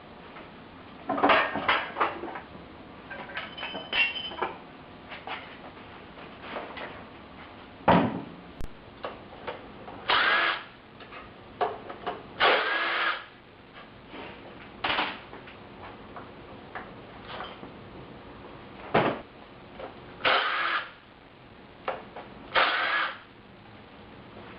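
A power tool, likely a wrench or drill, runs in repeated short bursts of a second or less each, undoing bolts on a Mazda 13B rotary engine during teardown.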